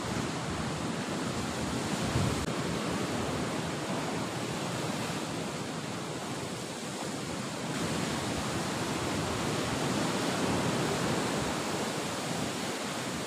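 Ocean surf breaking and washing onto the shore below: a steady rush of waves with no distinct events.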